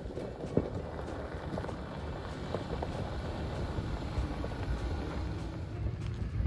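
Jeep driving slowly over a rough dirt trail: a steady low engine and tyre rumble with a few short knocks and rattles.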